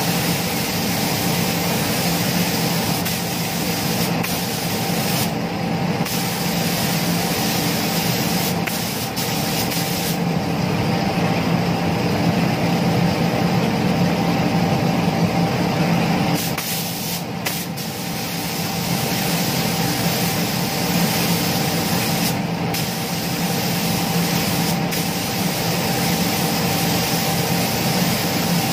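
Gravity-feed paint spray gun hissing as it sprays clear coat in passes, the hiss easing off briefly a few times between passes. A steady low machine hum runs underneath.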